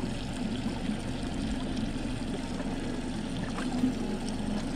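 Water lapping and trickling against a fishing boat's hull, over a steady low hum, with a faint knock about four seconds in.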